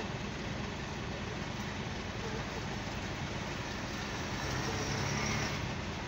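A motor vehicle engine running steadily, growing a little louder about four and a half seconds in, then easing off.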